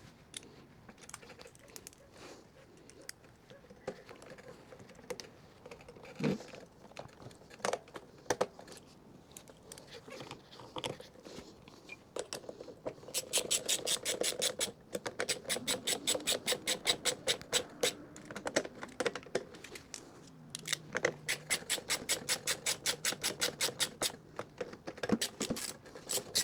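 Scattered light knocks and taps of parts being handled, then from about halfway long runs of quick, even clicking, about five a second, broken by short pauses: a hand ratchet wrench tightening bolts as the mower is put back together.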